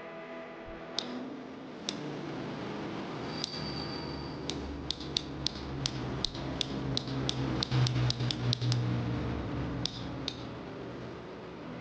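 A run of about twenty sharp clicks, coming two or three a second in the middle, over low handling noise.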